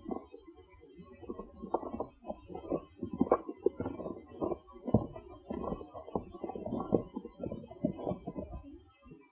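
Dull, muffled thumps and scuffing close to a field recorder sealed in a hard plastic case, several a second and uneven in strength, stopping shortly before the end.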